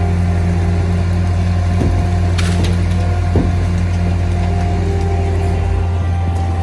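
Skid-steer loader's engine running steadily under load, a constant low drone, with a brief hiss about two and a half seconds in and a few light knocks.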